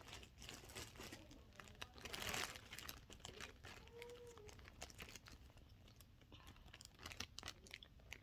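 Plastic zipper storage bags faintly crinkling and crackling as they are handled, one bag being worked into the other, with scattered small crackles and a slightly louder rustle about two seconds in.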